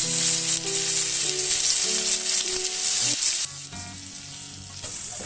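Fish pieces frying in hot oil in a pan, a loud steady sizzle. The sizzle drops off abruptly about three and a half seconds in and builds back near the end.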